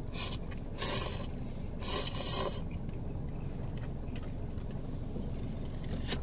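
A man slurping soba noodles, three short noisy slurps within the first two and a half seconds, over a steady low hum.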